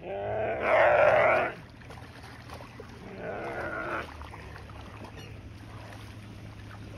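Nyala bleating in distress while an African wild dog bites it by the head in the water: one loud, drawn-out call, then a shorter, fainter one about two seconds later, over a steady low hum.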